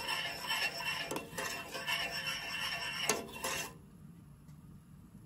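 A metal spoon stirring and scraping a thick chocolate mixture in a stainless steel saucepan, with a few sharp clinks of spoon against the pot. It stops abruptly a little past halfway, leaving faint room noise.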